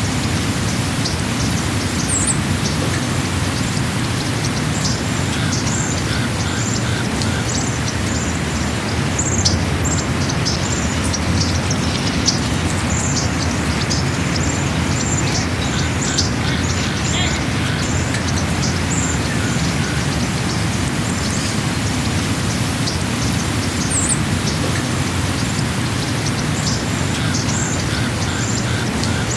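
Small birds chirping over and over, short high calls and a few quick trilled runs, above a steady low rumble.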